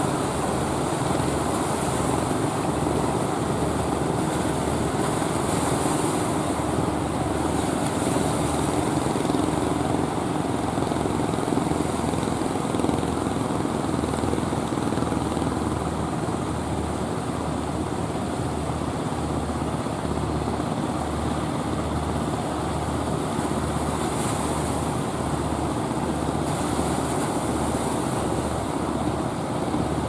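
Motor of a wooden fishing boat running steadily as it pushes through breaking surf, over the wash of the waves.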